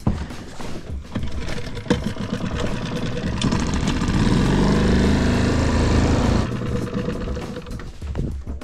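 Small gasoline outboard motor running, throttled up about three and a half seconds in and eased back off about three seconds later.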